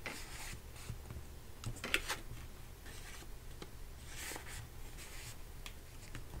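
Paper and card rustling and sliding as tabbed paper dividers are pushed in among a stack of index cards, with a few light scrapes and taps as the stack is squared up.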